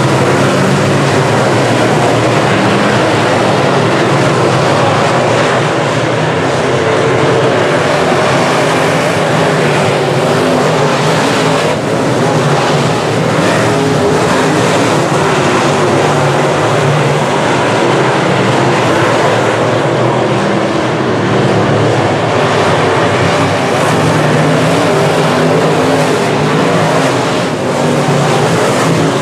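A field of semi-late model dirt track race cars running their V8 engines hard. The engines blend into one loud, steady drone whose pitch wavers as the pack circles the track.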